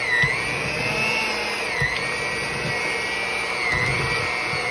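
Electric kitchen mixer running steadily, beating cream cheese and sweetened condensed milk into cheesecake batter. Its whine dips in pitch briefly three times, as the beaters bog down in the thick mixture.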